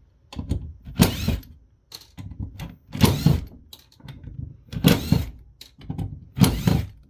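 Cordless impact driver backing out the PDU cover screws in four short bursts about two seconds apart, with light knocks between the bursts.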